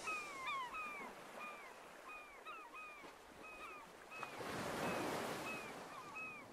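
Bird calls repeating about twice a second, each a short chirp that rises and then falls, over a faint wash of lapping water that swells about four seconds in.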